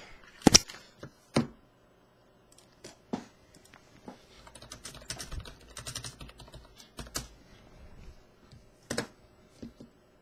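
Irregular short clicks and taps, with a few louder knocks: the loudest about half a second in, another a second later, and one near the end, and a denser patter of small clicks in the middle.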